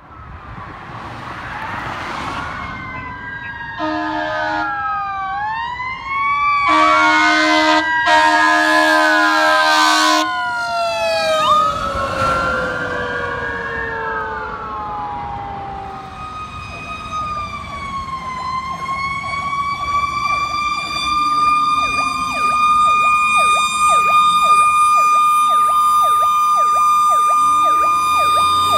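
Sirens of Seagrave fire engines responding, several wails gliding up and down over each other, with blasts of a truck's air horns about 4 s in and again from about 7 to 10 s. Later one siren holds a steady high note with a rapid pulsing under it.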